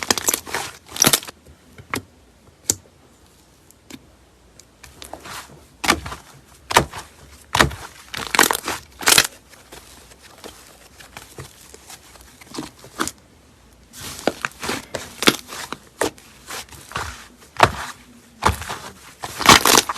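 Slime being squeezed and pressed by hand, making irregular bursts of sharp crackling and popping clicks with short quieter pauses between handlings.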